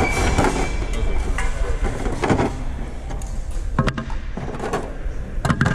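A steady low rumble with a few short knocks and clicks: one about two seconds in, a pair near four seconds, and another near the end.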